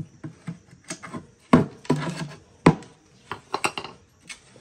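A claw hammer knocking and clattering against old wooden boards on a concrete floor while the nails are pulled from them. There are about half a dozen sharp separate knocks spread over the few seconds, with a short rough scrape a little after halfway.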